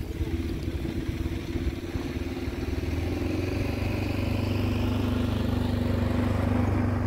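A motor vehicle's engine running steadily and growing gradually louder as it draws near.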